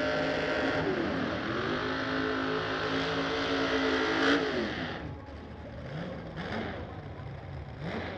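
Drag car's engine held at high, steady revs through a burnout, dipping briefly once. About four seconds in it comes off throttle, then runs lower with a few quick rising throttle blips.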